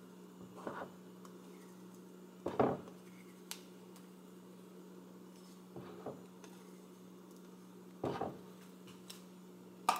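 A spatula scraping and tapping against a measuring cup as thick yogurt is scraped out: about six short knocks and scrapes, spread out, the loudest about two and a half seconds in. A faint steady low hum runs underneath.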